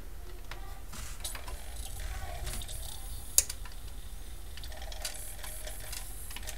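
Sony CDP-X55ES CD player's disc mechanism spinning a disc up and slowing it down, with small mechanical clicks and ticks over a low hum and one sharp click about three and a half seconds in. After the repair it no longer makes the noise it made when the disc sped up or slowed down.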